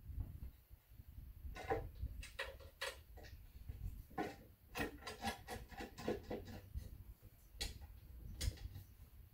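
Irregular light clicks, taps and knocks of hand tools and metal parts on an AMC 4.2-litre inline-six engine being worked on by hand, busier in the middle stretch.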